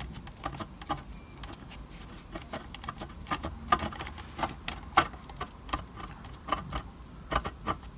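Small sponge dabbing acrylic paint onto the embossed brick wall of a model house kit: a quiet, irregular patter of soft taps and clicks, a few of them louder.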